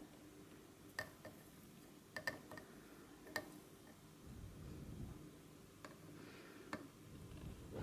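Faint, scattered clicks and taps of soldering tools against a circuit board and its small parts, about nine sharp ticks spread irregularly, over a low steady hum.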